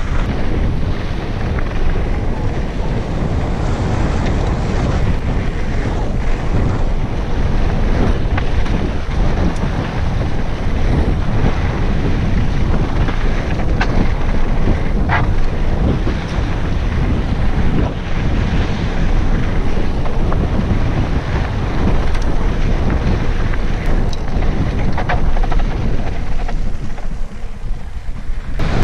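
Wind rushing over the camera microphone on a mountain bike descending a dirt singletrack: a loud, steady rush, with a few sharp clicks and rattles from the bike.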